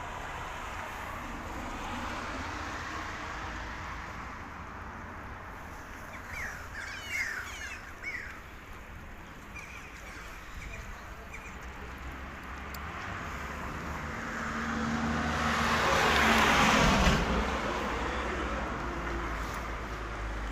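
Outdoor background noise with a few short, quick bird chirps about seven seconds in, then a passing vehicle that swells and fades, loudest about three-quarters of the way through.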